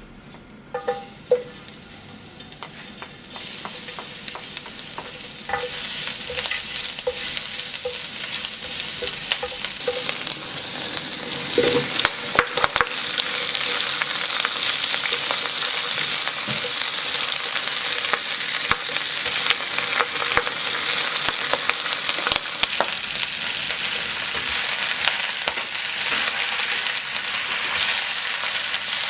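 Garlic and then bok choy sizzling in hot oil in a nonstick wok, with a slotted spatula scraping and tapping against the pan as the vegetables are stir-fried. The sizzle starts faint and grows louder over the first few seconds, then runs steadily, with a burst of louder clicks and knocks about twelve seconds in.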